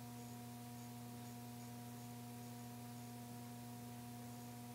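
Faint steady electrical hum, a low tone with a few higher overtones, over a light hiss.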